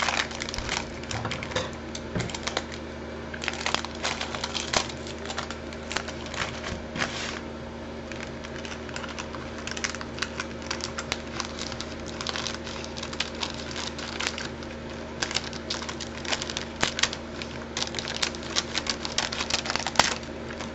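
Foil potato-crisp packet being handled and opened: irregular crinkling and crackling of the foil, with scissors cutting into it near the end. A faint steady hum runs underneath.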